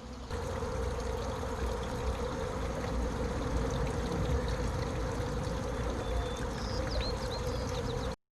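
A swarm of honey bees humming steadily, over a rumble of wind on the microphone. A few faint bird chirps come in near the end, and the sound cuts off suddenly.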